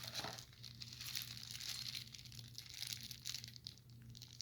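Packaging crinkling and rustling continuously as the lock's parts are handled and unpacked.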